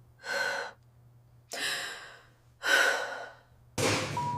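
A person sighing and gasping: three heavy, breathy exhalations about a second apart, followed near the end by a sudden rush of noise.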